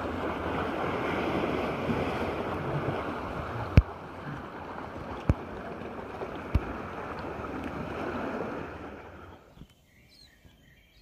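Sea water splashing and lapping around a kayak, a steady rushing noise broken by three sharp knocks. It cuts off about nine seconds in, leaving a quiet background with birds chirping.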